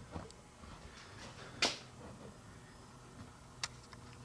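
A few sharp, isolated clicks and light taps; the loudest comes about one and a half seconds in and another about two seconds later.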